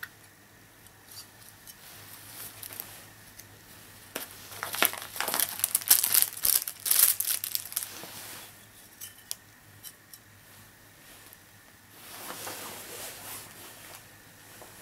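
Crinkling of a thin clear plastic packaging bag being handled and laid down. It is loudest as a dense run of crackles from about four and a half to eight and a half seconds in, with a softer stretch of crinkling near the end.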